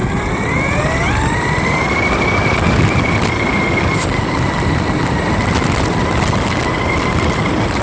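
A 1/10-scale Traxxas Slash 4x4 RC truck's electric motor and drivetrain whining as it accelerates, the pitch rising for about two seconds and then holding steady at speed. Underneath runs the rumble and rattle of its tyres on rough, gritty pavement, with a couple of sharp knocks from bumps, heard from a camera mounted on the truck.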